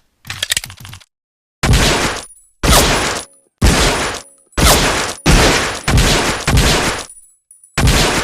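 M1911A1 .45 pistol firing about seven shots, roughly one a second, each a sharp crack with a short ringing decay, after a few mechanical clicks of the gun being handled.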